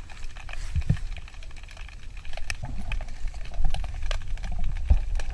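Underwater sound on a scuba diver's camera: a low rumble of exhaled regulator bubbles, swelling and fading, with scattered sharp clicks and crackles throughout.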